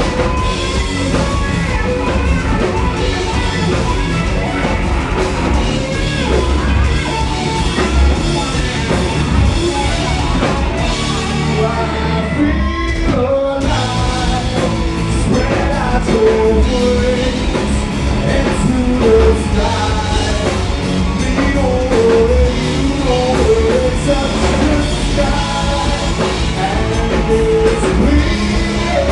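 A rock band playing a song with a singer's voice over the band.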